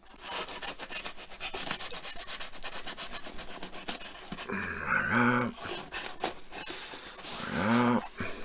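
A folding knife blade slitting and scraping along the packing tape on a cardboard box's seam, a fast run of rough scratches and ticks.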